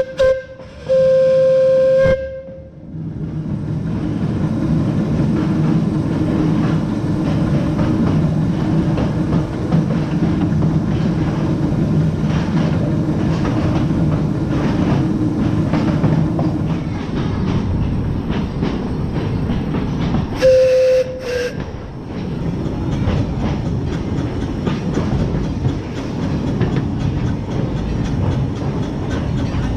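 Steam whistle of a small 0-4-2 tank locomotive: one blast ending just after the start, then a longer blast of about a second and a half, and another blast of about a second about two-thirds of the way through, which dips in pitch as it stops. Between the blasts the locomotive runs along the track with a steady rumble and clatter.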